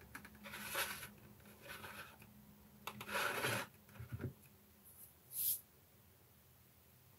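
Faint rubbing and scraping of hands handling a plastic model, turning it and shifting it on a cutting mat, in several short bursts, the longest about three seconds in, with a few light ticks after it. A brief high hiss follows about five and a half seconds in.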